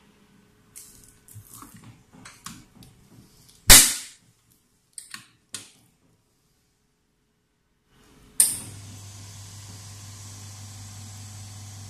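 Light clicks and knocks from handling the machine, then one loud sharp bang about four seconds in and a few more clicks. Near the end the nano waterproof coating machine starts up with a sudden burst and runs on as a steady hiss over a low hum.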